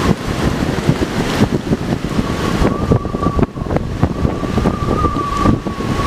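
Wind buffeting the microphone in uneven gusts, with many sharp clicks and crackles. From about two seconds in, a steady high whine wavers slightly above it.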